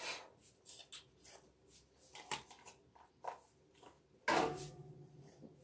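Light clicks and taps of a spoon and containers being handled at a kitchen table, about a dozen spread over the first four seconds. Just past four seconds in comes a louder knock that fades out over about a second.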